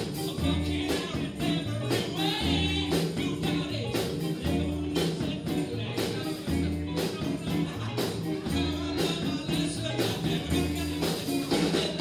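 Live rock band playing with a steady beat: electric bass, drums and electric guitar, with a woman singing lead.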